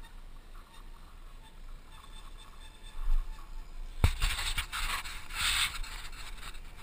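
Wind buffeting a helmet-mounted camera's microphone on a bicycle rolling down a paved road: a low rumble at first, then from about four seconds in a louder, gusty rushing that comes and goes in surges.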